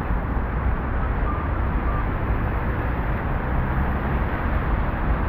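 City street noise: a steady rumble and hiss of passing road traffic.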